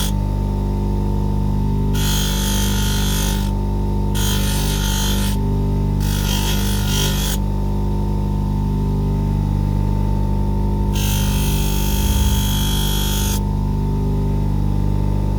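Bench polishing or grinding motor running steadily with a low hum, with a harsh hiss that starts and stops as the knife is worked against the wheel, in four passes of about one to two seconds each.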